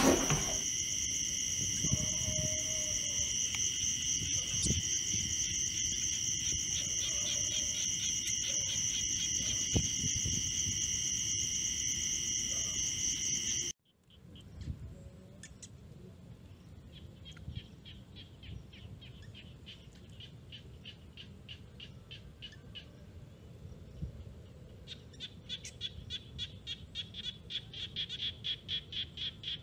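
Night ambience of calling insects: a steady, high shrill chorus with a pulsing edge, which cuts off suddenly about halfway. After that, quieter trains of rapid, evenly pulsed chirps come twice, about five pulses a second, the second train louder near the end.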